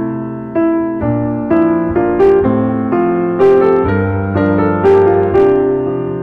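Background piano music, with notes struck at an even pace and fading after each strike.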